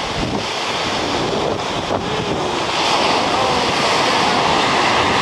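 Shorebreak waves washing onto the beach, with wind buffeting the microphone; the surf swells louder about three seconds in.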